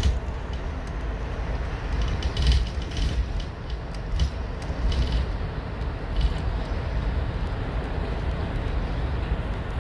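Cabin noise of a moving road vehicle: a steady low rumble from the engine and tyres, with scattered short rattles and creaks from the interior.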